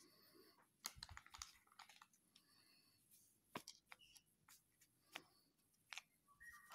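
Faint, scattered clicks and light rustling from handling a small plastic feeding bottle and a foil sachet while powdered milk is poured into the bottle.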